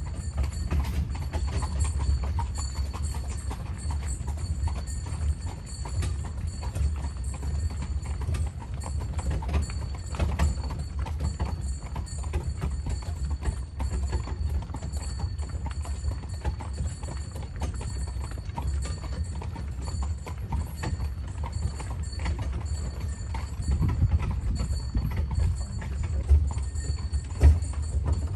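A carriage horse's hooves clip-clopping steadily on a forest track, over a steady low rumble, with a few louder knocks near the end.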